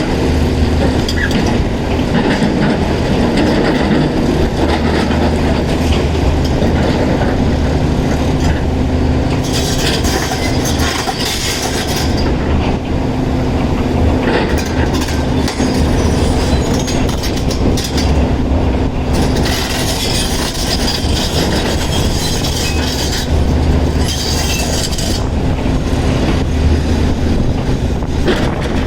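Caterpillar 336 excavator's diesel engine running steadily under load, with several spells of a few seconds each of harsh grinding and clattering, steel working against rock.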